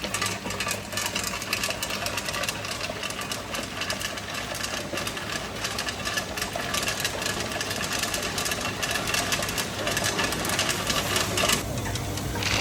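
A 1-ton tube ice machine running: a steady low machine hum with a dense, rapid clatter of clicks over it.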